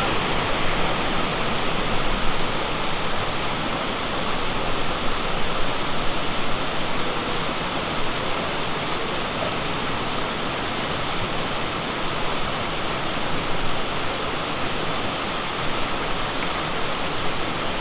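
Waterfall and its stream rushing steadily, an unbroken hiss of falling and flowing water.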